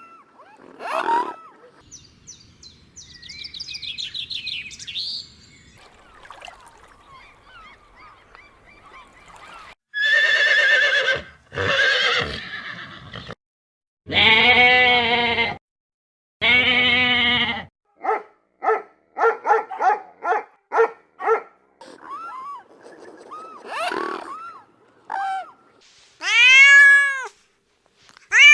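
A string of different farm animal calls, among them two long goat bleats around the middle, then a quick run of about a dozen short calls and a single call near the end that rises and falls in pitch.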